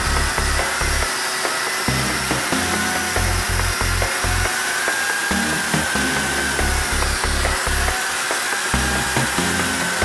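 Spiider concrete engraving saw, its angle-grinder motor and blade running steadily as it scores a curved line into a concrete floor, with a high whine that wavers slightly. Background music with a steady low beat plays under it.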